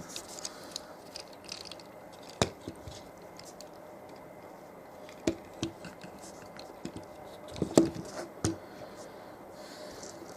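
Hands handling a plastic toy and its packaging: scattered sharp clicks and taps with light rustling.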